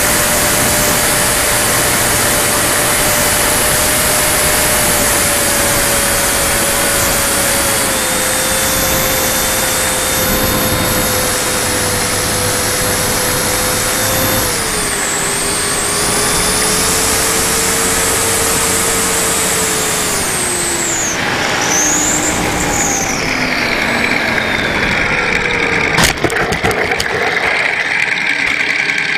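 Motor and propeller of a radio-controlled model Spitfire in flight, with heavy wind rush on a wing-mounted camera. The motor's pitch steps down twice, then falls away as the throttle is cut for landing. A sharp knock comes near the end as the plane touches down on grass.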